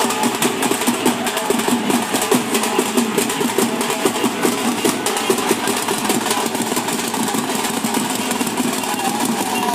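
Dhol drum beaten with a stick in a fast, steady, driving rhythm.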